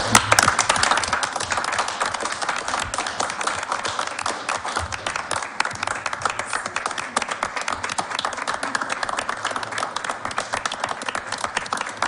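Applause from a room of people, many hands clapping, loudest as it begins and then steady.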